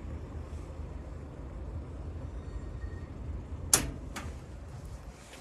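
Steel parcel-locker door of a DHL Packstation springing open, with one sharp clack a little under four seconds in and a softer knock about half a second later, over a steady low rumble.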